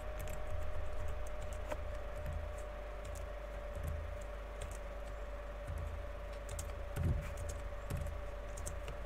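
Computer keyboard typing: scattered, irregular key clicks as code is entered, over a steady low hum and a faint steady whine.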